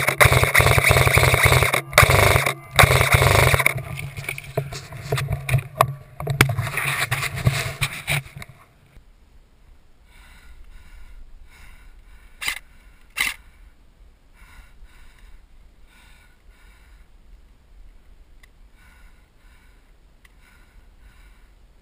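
Loud scraping and rustling close to the microphone for about eight seconds, then much quieter, with faint scattered ticks and two sharp clicks about a second apart.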